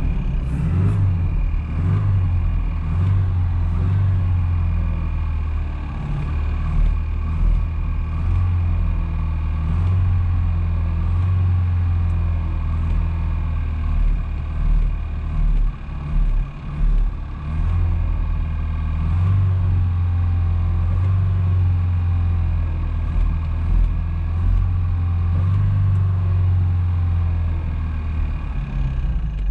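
1986 Volvo 245 DL's carbureted B23A four-cylinder engine running at idle just after a cold start at −14 °C: a steady low drone that turns weaker and uneven for a few seconds around the middle before settling again.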